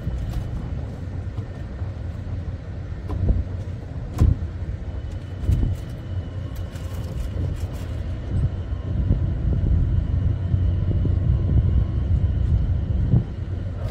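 Continuous uneven low rumble with a faint steady high whine above it, broken by a few short clicks and knocks, the sharpest about four seconds in.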